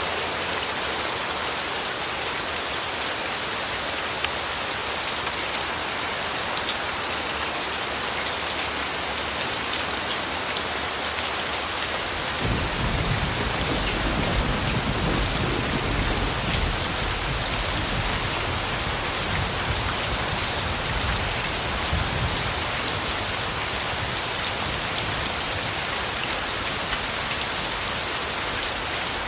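Steady heavy rain falling on a surface, an even hiss throughout. About twelve seconds in, a long low rumble of thunder comes in, strongest for a few seconds, then fading slowly while staying under the rain.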